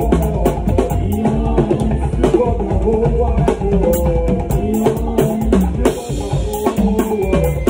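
Live alujo band music: a drummer playing fast stick strokes on the drum kit's snare and toms, over a steady bass line and notes that bend up and down in pitch.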